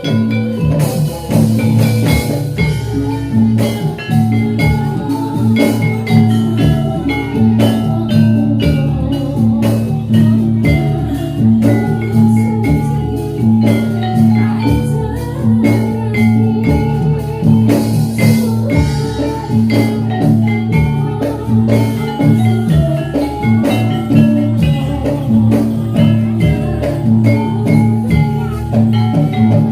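Javanese gamelan playing jathilan dance accompaniment: struck bronze metallophones ringing over drums in a dense, steady rhythm.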